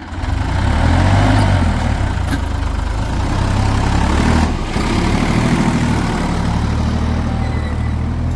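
Heavy diesel engine of earth-moving or farm machinery running loud and steady. It comes up sharply at the start and dips briefly about four and a half seconds in.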